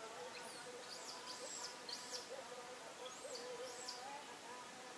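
Birds calling outdoors: a run of short, high, arching chirps, then another pair about three seconds in, over a faint lower warbling.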